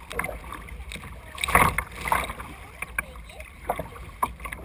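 Kayak paddle strokes splashing and dripping in the water, in irregular bursts, the largest splash about a second and a half in.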